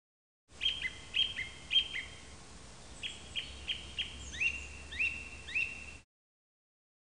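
Small songbird chirping: a run of about a dozen short, clear chirps, some with a quick upward slide, starting and stopping abruptly as an inserted sound clip.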